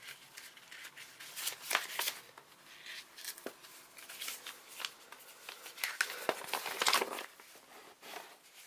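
Paper rustling and crinkling as a model kit's folded instruction sheet is handled, opened out and pressed flat. It comes in irregular short bursts, loudest about a second and a half in and again around six to seven seconds in.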